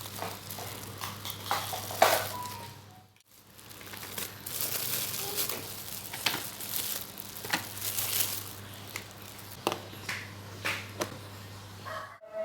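Plastic bags and food containers being handled: crinkling and rustling with scattered clicks and knocks.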